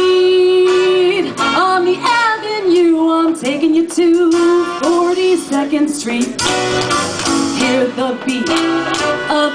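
A woman singing into a microphone over backing music, holding long sung notes.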